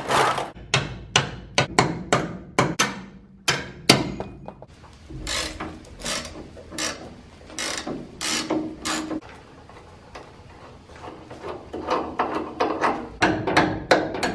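Tools working on a truck's leaf-spring bolts: an impact wrench rattling on a nut, hand-ratchet clicking, then repeated hammer blows driving the bolt out near the end.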